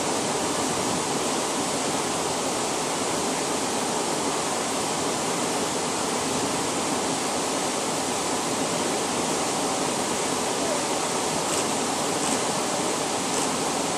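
Steady rush of a whitewater river rapid, water churning over rocks.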